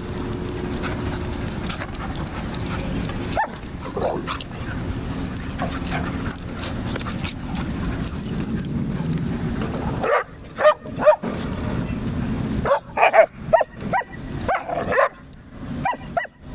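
Dogs play-wrestling, with a run of short yips and whines in the last six seconds over a steady low rumble.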